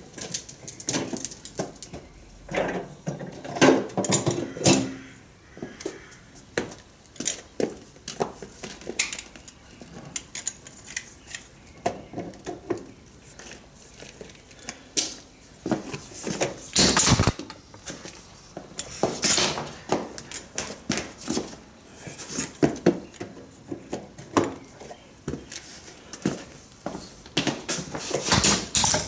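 Irregular metallic clanks, rattles and knocks as a Champion portable generator is moved into place on concrete and a heavy extension cord is handled and plugged into it. The generator's engine is not heard running.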